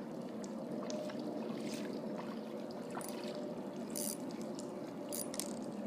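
Steady trickling of water, with a few faint clicks.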